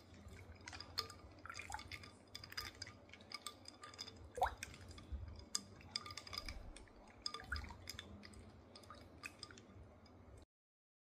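Plastic spoon stirring a milky drink full of ice cubes in a glass bowl: liquid sloshing with irregular soft clinks of ice and spoon against the glass, and one short squeak about halfway through. The sound cuts off abruptly just before the end.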